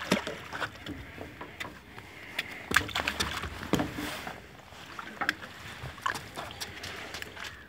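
Water splashing and sloshing as a carp is scooped into a landing net and lifted clear of the water, with scattered sharp knocks and clicks throughout.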